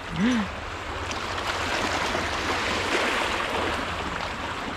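Steady rush of moving water: waves washing along the shore.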